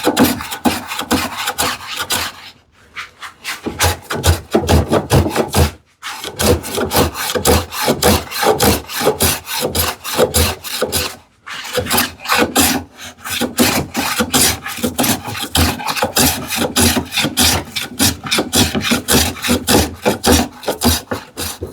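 Hand plane taking shavings off the side of a wooden drawer, in quick repeated strokes with a few short pauses.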